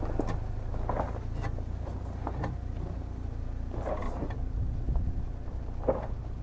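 Short-wheelbase Opel Frontera's engine running at low revs as it crawls off-road over rock, with irregular crunches and creaks from the tyres and chassis working over loose stones.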